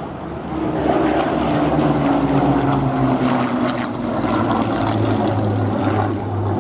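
Piston engines of a Spitfire and Hurricane, both Rolls-Royce Merlin V12s, flying past in formation. Loud engine note whose pitch falls as the aircraft pass.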